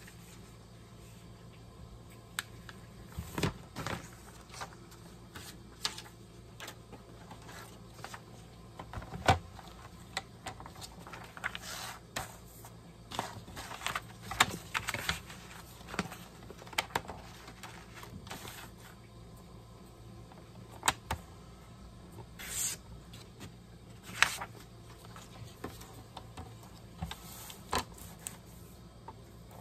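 Sheets of paper and card being handled and lined up on a sliding paper trimmer: scattered rustles, light taps and clicks, with a few brief scrapes of paper sliding.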